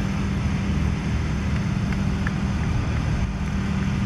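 Steady low machine hum, even in level throughout, with a few faint ticks about halfway through.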